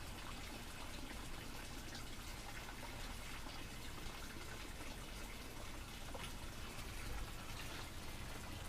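Steady patter of rain, with scattered drips and light taps and a low rumble underneath.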